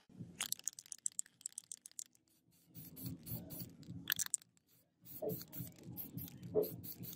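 Irregular light clicks and scrapes as a steel cleaver is handled over a metal pan, with a faint low rumble between them.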